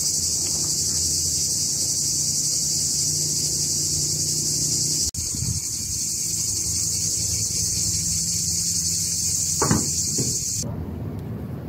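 Summer insect chorus, a dense steady high buzz over a low steady hum, cutting off suddenly near the end.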